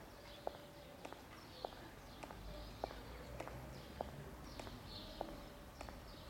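Footsteps on a stone-paved path at an even walking pace, about one step every half second or so, with small birds chirping faintly.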